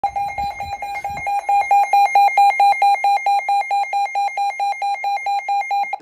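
Electronic emergency alert tone beeping rapidly and steadily, about four beeps a second, with a few low bumps in the first second or so. It is the attention alarm that announces a tornado warning.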